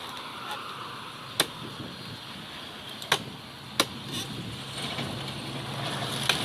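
Three sharp, separate hammer strikes on metal, irregularly spaced, over a steady hiss. A low steady hum rises near the end.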